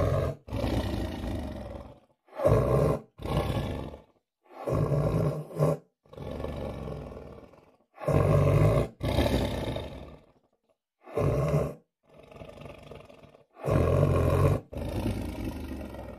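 Reconstructed mating call of an American cave lion: a series of about a dozen deep, lion-like roars separated by short gaps. Loud, short roars alternate with longer ones that fade out, and each starts and stops abruptly.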